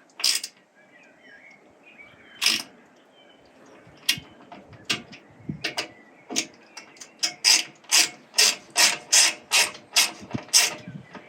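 Ratchet wrench clicking while the bolts holding the roller kit to the roof rack are tightened: scattered clicks at first, then a steady run of about two clicks a second in the second half.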